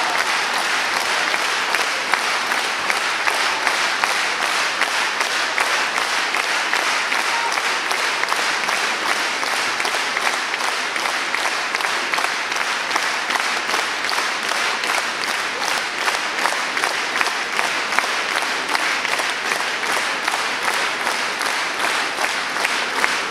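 Theatre audience applauding steadily during the curtain call: dense, sustained clapping from a full house.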